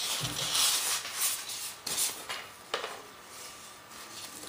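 Balsa sheet and foam wing core being slid and rubbed against each other on a wooden workbench, a scratchy rubbing for the first couple of seconds, then a couple of light knocks as the pieces are set down, quieter after.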